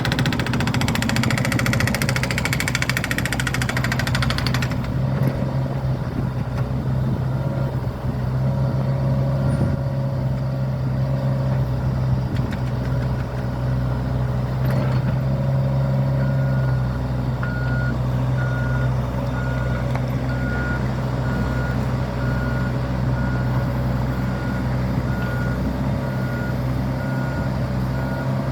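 Heavy construction machinery engine running steadily with a low drone, with a harsher rattling noise over the first four or five seconds. From about halfway, a reversing alarm beeps about once a second.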